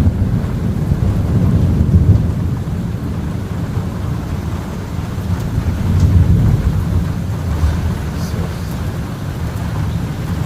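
Thunder rumbling continuously from a close lightning barrage, a deep low rumble that swells about two seconds in and again about six seconds in.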